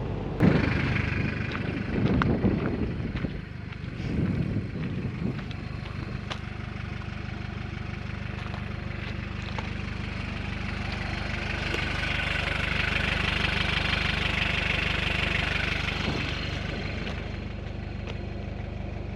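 A 4x4's engine running steadily at low revs, with a few knocks and rustling in the first five seconds and a louder, brighter stretch in the middle.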